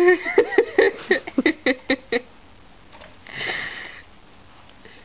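A woman giggling: a quick run of short, high, bouncing laughs for about two seconds, then one long breathy exhale about three seconds in.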